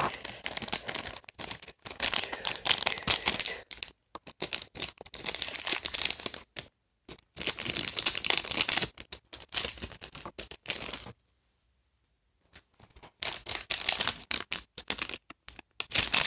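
Crinkling and tearing of a small blind-bag toy packet being torn open and rummaged through by hand: irregular crackles and snaps, with the sound cutting out completely for about a second and a half near the middle.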